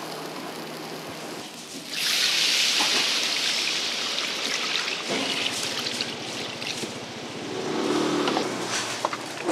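Pan-fried buns (shuijianbao) sizzling in a large frying pan. About two seconds in, water is poured into the hot pan and a loud steam hiss starts suddenly, then slowly eases into a softer sizzle as the water covers the pan.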